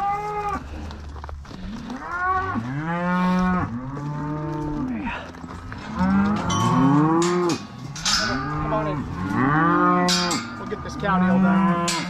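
Cows and calves of a South Poll-sired herd mooing, many calls overlapping one after another with hardly a break, some low and some higher-pitched.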